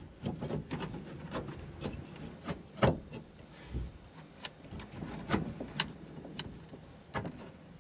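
Irregular clicks, knocks and rattles of the car door handle's parts being worked loose and pulled through the door panel, loudest about three seconds in and again past five seconds.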